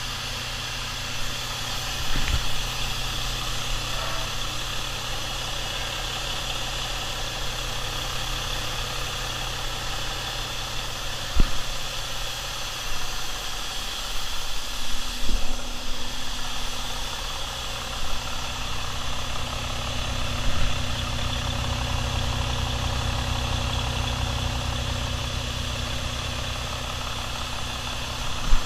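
Volvo D13 inline-six diesel truck engine idling steadily, running to show that it is a good runner. A few sharp knocks sound over it, the loudest about eleven seconds in.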